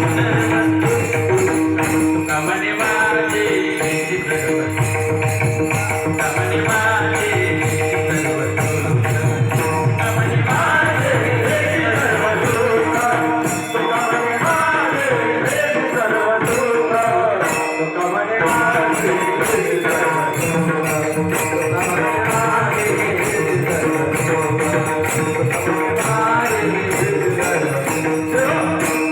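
Varkari bhajan music: a man sings a devotional melody over a steady drone, with rapid jingling hand cymbals (taal) and mridang drum keeping the beat.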